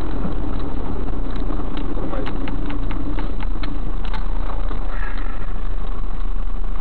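Cab noise of a heavy vehicle braking and slowing to a stop: a steady low engine and road rumble, with a run of light clicks in the middle.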